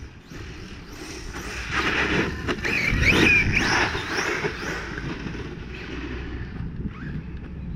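Brushless electric RC car on a 6S battery driving through thick grass. The motor whine rises and falls as it accelerates and slows, loudest around three seconds in, over a rushing drive and body noise.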